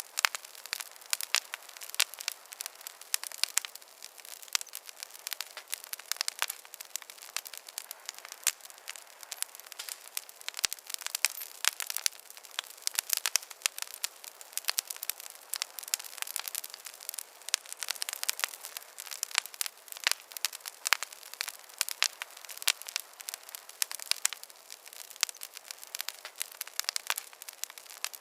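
Wood campfire crackling: a dense, irregular run of small sharp pops and snaps over a faint hiss, with no low rumble.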